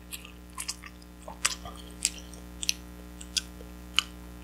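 Someone eating pasta with a metal fork from a ceramic bowl: chewing, with about seven small, sharp clicks of the fork against the bowl scattered through the moment.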